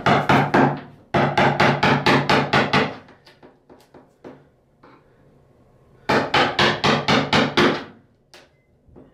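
A hammer tapping a pry tool wedged under the quarter-round trim at the base of a bathtub, working the trim loose. The blows come in quick runs of about six a second, three runs in all, with a few single taps in the pauses between them.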